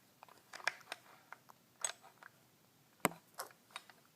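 Scattered light knocks and clicks of a baby handling toy xylophone mallets, with one sharper knock about three seconds in.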